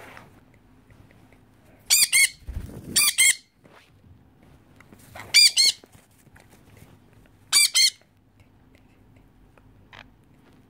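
Sun conures screeching: four loud, harsh double screeches spread over several seconds.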